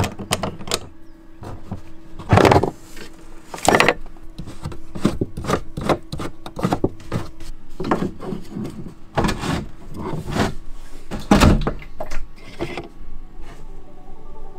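A plastic water jug being handled in a wooden van cabinet: it is unstrapped, its cap worked, and it is scraped and knocked against the wood. The clatter is made of many clicks and rubs, with loud knocks about two and a half, four and eleven and a half seconds in.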